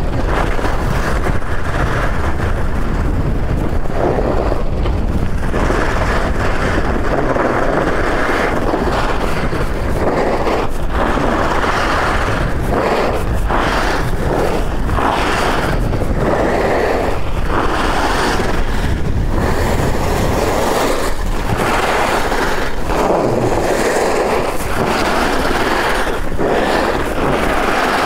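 Skis carving fast on hard, icy groomed snow: a continuous scraping hiss from the edges that swells and fades with each turn, over a low rumble of wind on the microphone.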